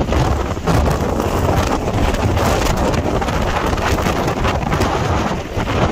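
Strong wind buffeting the microphone: a loud, steady rushing with a heavy low rumble, easing briefly near the end.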